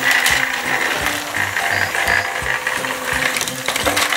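Motorized toy trains running on the track, their small motors and plastic gears clattering and clicking, over background music with a repeating bass line.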